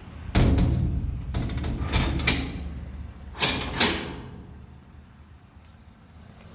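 Steel door and latch hardware of a steel tornado shelter clanking: a run of metal knocks and bangs with ringing over the first four seconds, then dying away.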